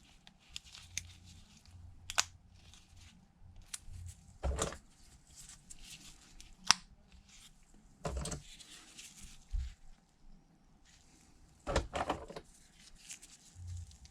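Small tools and parts being handled at a phone-repair bench: scattered sharp clicks and short scraping, rustling bursts.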